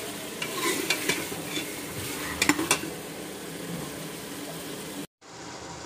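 A metal spoon stirs and scrapes mutton, taro and tomato sautéing in oil in a metal pot, over a sizzle, with a few sharp clinks against the pot, two of them close together about two and a half seconds in. About five seconds in the sound cuts out for a moment, and a steadier sizzle follows.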